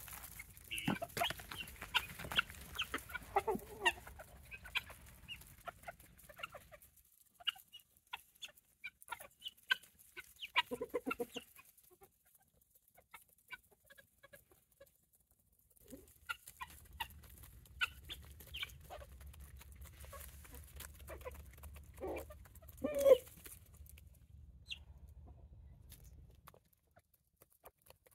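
Chickens clucking in short, scattered calls as they peck at food, with one louder call late on.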